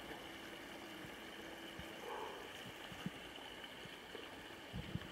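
Faint, steady outdoor background noise with a few soft low bumps.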